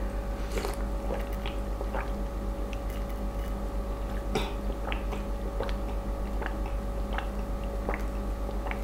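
Close-miked drinking of juice from a glass: wet mouth clicks, sips and swallows about twice a second, over a steady low hum.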